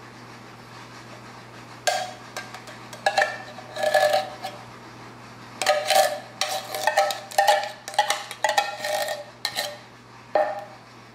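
Metal spoon clinking and scraping against an open tin can while scooping out tomato sauce and spreading it, in irregular clusters of short ringing knocks that start about two seconds in and die away near the end.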